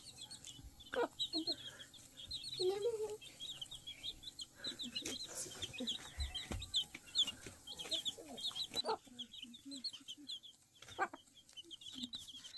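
Chicks peeping over and over in quick, high notes, with a hen's low clucks now and then, as they feed on grain.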